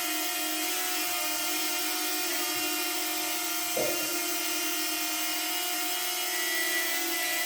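DJI Flip drone hovering, its propellers giving a steady multi-tone hum, with one brief sneeze-like burst about four seconds in. The owner takes this for the odd noise of a factory fault in the propellers.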